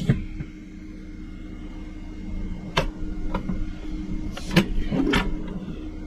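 Light clicks and knocks from a plastic keypad door-lock unit being handled, a couple about three seconds in and a few more around five seconds, over a steady low hum.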